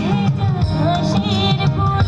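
Live rock band playing amplified: electric guitars, keyboard and drums, with a voice singing the melody over them.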